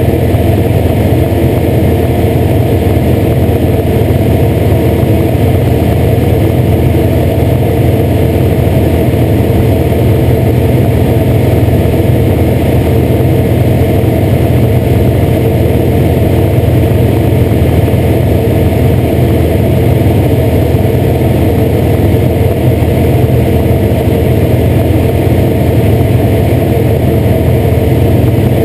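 Light propeller aircraft in flight: its engine and propeller run steadily without change, heard loud from a camera mounted outside under the wing.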